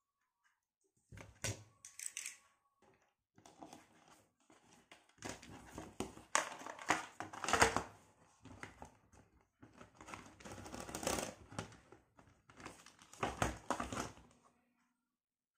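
Hands working electrical wire into a plastic switch-and-socket board: irregular rustling, crinkling and light clicks, in several bursts of a second or two.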